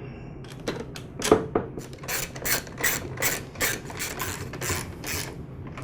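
Ratchet socket wrench clicking in quick, even back-and-forth strokes, about two or three a second, as it tightens the mounting bolts of the mower's electric starter.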